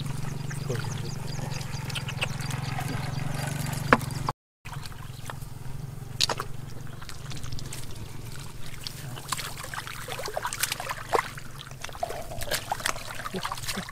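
Hands splashing and groping in a shallow muddy paddy channel: scattered wet splashes and slaps, denser after a short drop-out about four seconds in. A steady low hum runs underneath for the first few seconds.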